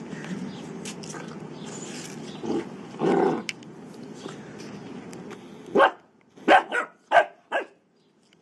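Bernese mountain dog puppy barking: five short barks in quick succession, about a second and a half in all, in the last third. Before the barks there is a steady background rumble with one louder burst of noise about three seconds in.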